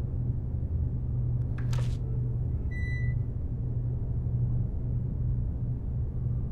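A steady low rumbling drone. About two seconds in there is a brief rustling noise, and about three seconds in a short high beep.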